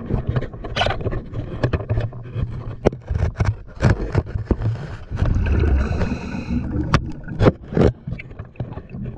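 Underwater audio: a steady run of sharp clicks and knocks, with a louder low rush of air bubbles about five to six and a half seconds in as air is let out to blow bubble rings.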